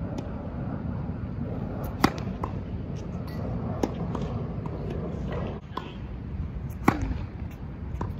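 Tennis rally on an outdoor hard court: a handful of sharp pops from racket strings striking the ball and the ball bouncing on the court, spaced about a second or two apart, the loudest about two seconds in and near the end, over a low steady rumble.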